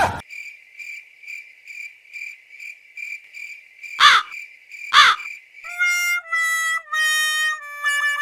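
Comic cricket-chirp sound effect: a high chirp repeating about three times a second. Two quick swooshes come at about four and five seconds in, then a short run of electronic musical notes stepping in pitch.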